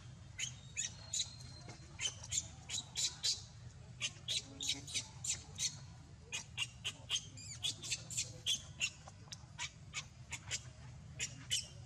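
Baby Barbary macaque giving rapid, high-pitched distress squeaks, two to four a second in irregular runs, over a steady low hum.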